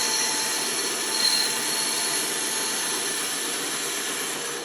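A power tool running steadily on wood, a continuous hissing whir with a faint high whine, which eases off near the end.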